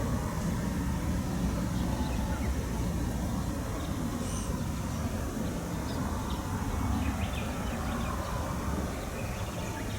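Outdoor trackside background: a steady low rumble with a few faint, short bird chirps.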